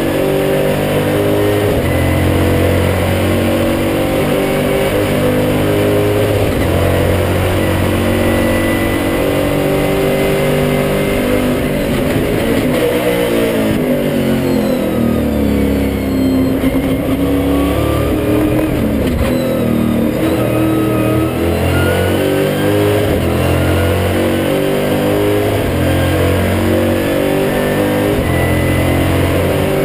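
Stock Car race car's V8 engine heard from inside the cockpit, its pitch stepping up and down, with a slower dip and rise about halfway through.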